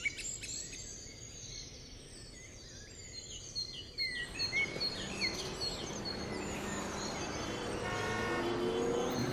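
Small birds chirping over a background of city traffic noise, which grows louder about four seconds in.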